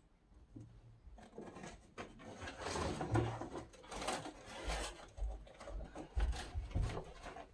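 An upholstered ottoman being moved by hand. From about a second in there is rubbing and scraping, with repeated low bumps and knocks as it is shifted and set down.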